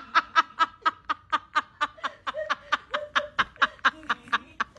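A person laughing in a voice message being played back: quick, evenly paced 'ha-ha-ha' bursts, about five or six a second.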